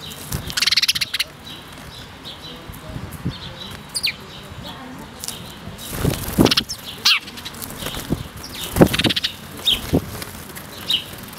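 A flock of house sparrows fluttering their wings in several short bursts as they fly up to snatch food held out to them, with brief high chirps in between.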